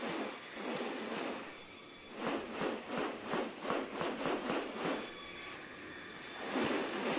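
Rainforest insects keeping up a steady high-pitched drone. In the middle, a separate run of about a dozen quick pulses comes at roughly four a second.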